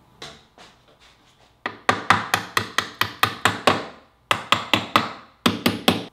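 Hammer tapping stainless steel bolts through the holes of a mahogany boat console to seat the steering-helm mount. A few light taps come first, then three quick runs of sharp strikes at about four a second, with brief pauses between the runs.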